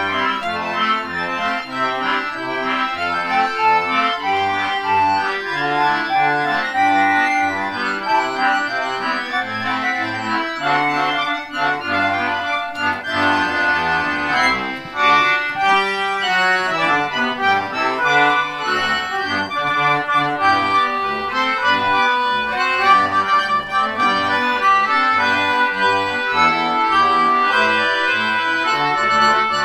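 A concertina band of English concertinas, including a piccolo concertina, playing a march in several parts: a melody above sustained chords, with a bass line moving in short notes underneath.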